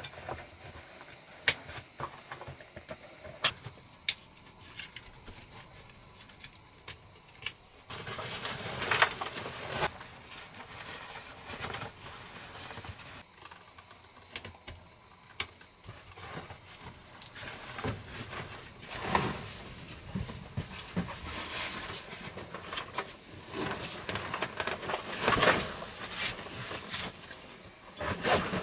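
Backpack being packed and strapped up: nylon fabric and straps rustling in several longer swishes, with a few sharp clicks of buckles and clips in the first half.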